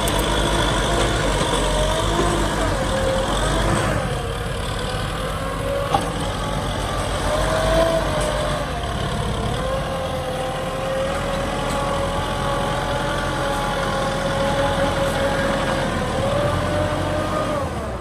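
Kubota M6040SU tractor's diesel engine running under load while its front dozer blade pushes soil. The engine pitch sags and recovers several times as the load changes, and there is one sharp knock about six seconds in.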